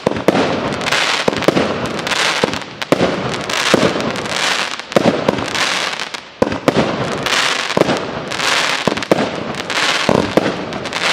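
Fireworks display: aerial shells bursting in quick succession, a sharp bang every half second to a second, over a continuous crackling hiss from the glittering stars.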